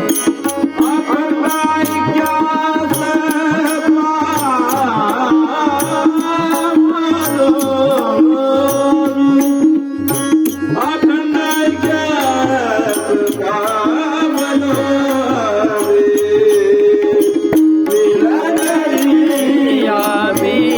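Marathi devotional abhang music: a melodic line that glides and bends in pitch over a steady tabla and cymbal rhythm.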